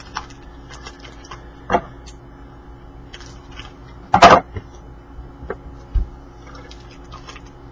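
Hockey trading cards being handled and flipped through: light rustles and clicks, with one short louder sound about four seconds in and a low thump near six seconds.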